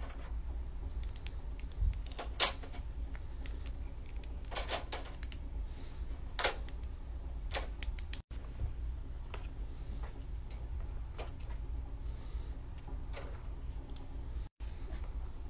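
Fidget toys being clicked and popped by hand: irregular sharp clicks and pops, a few louder than the rest, over a low steady hum.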